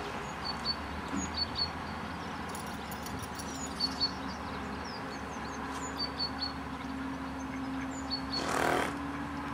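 Small birds chirping over and over in short high double notes, over a steady low rumble. A steady low hum joins about three seconds in, and a short rush of noise comes near the end.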